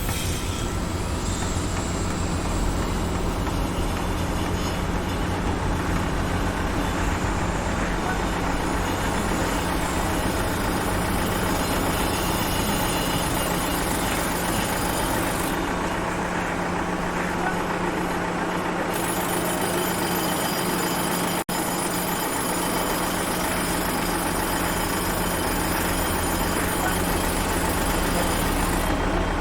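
Heavy vehicle engine running steadily in a dense wash of construction-site machinery noise, with a low, even hum underneath and a momentary break about 21 seconds in.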